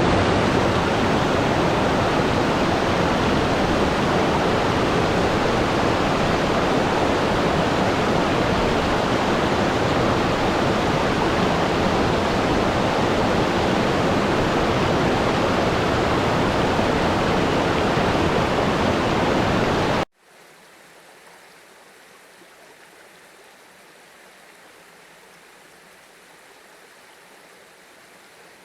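Steady rushing of a stream's water, loud and even. About twenty seconds in it cuts off abruptly, leaving only a faint hiss.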